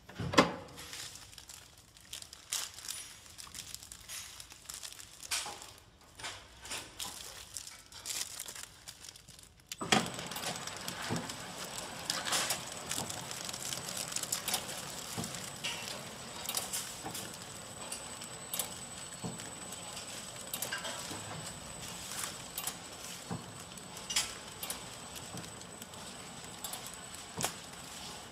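Scattered clicks and knocks as the flow wrap machine is adjusted by hand. About ten seconds in, the horizontal flow wrap (pillow packing) machine starts running with a steady mechanical clatter, frequent clicks and a thin high whine as it wraps a bun in film.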